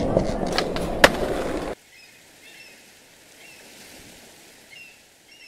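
Skateboard wheels rolling on a hard floor, with a sharp clack about a second in, cutting off abruptly before two seconds in. After that only a faint background remains, with a few faint high chirps.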